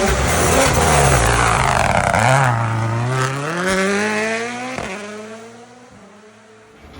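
Rally car engine at full throttle passing by, its note dipping briefly at a gear change and then climbing steadily, with a sharp crack about five seconds in, then fading away as the car goes off.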